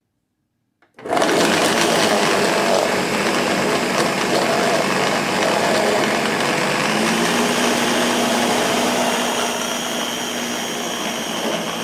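Ninja countertop blender switched on about a second in and running at speed, its blades churning mango pieces and syrup into a puree; steady and loud, easing slightly near the end.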